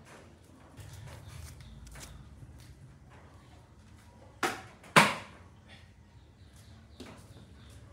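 Two sharp knocks about half a second apart, a little after the middle, the second louder and ringing briefly, amid a few faint clicks.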